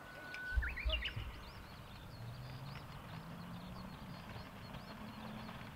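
Small birds chirping over and over in the background. A dull low thump comes about half a second in, and a low hum rises in pitch in steps through the middle and later part.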